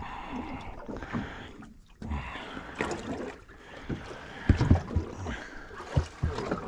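Small fishing boat on the water: a steady wash of water against the hull, broken by irregular knocks and thumps of handling on board, the loudest a few seconds in.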